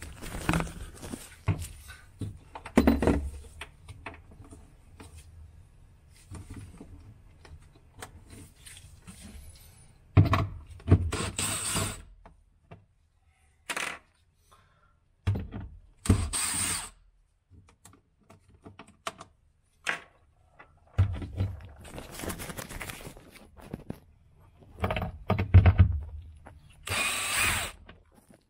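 Cordless drill-driver running in several short bursts a few seconds apart, driving screws in the plastic liner inside a refrigerator. Knocks and clunks of plastic parts being handled come between the runs.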